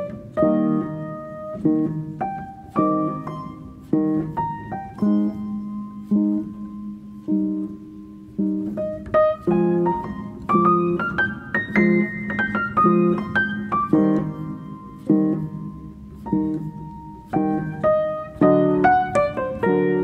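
Background piano music: notes and chords struck about once a second, with a rising run of notes about halfway through.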